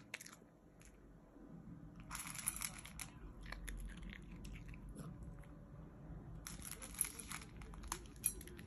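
Miniature Pinscher crunching dry kibble from a stainless steel bowl: two spells of crunching, about two seconds in and again near seven seconds, with a few sharp clicks.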